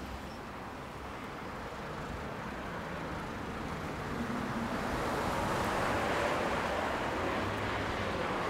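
Street traffic: the tyre and engine noise of a passing vehicle grows louder to a peak about six seconds in, then eases slightly.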